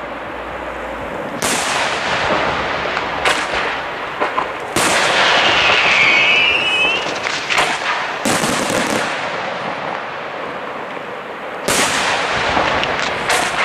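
Aerial firework shells bursting one after another, each a sharp report followed by a long crackle, a second or two apart. A brief whistling tone comes about six seconds in.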